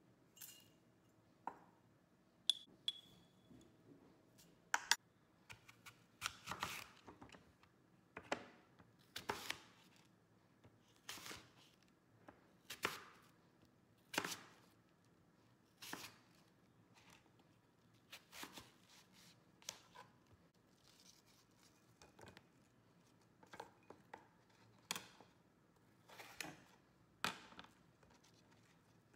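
Kitchen knife slicing a Pink Lady apple: a series of separate cuts, roughly one every second or two.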